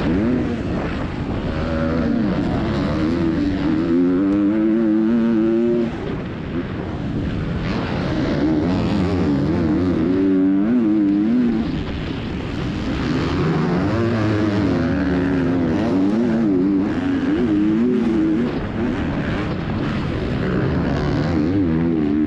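A KTM 250 SX-F motocross bike's single-cylinder four-stroke engine heard from on board, revving hard and shifting, its pitch climbing and falling again and again as the rider accelerates and backs off. It drops off the throttle briefly about six seconds in and again near twelve seconds before pulling hard once more.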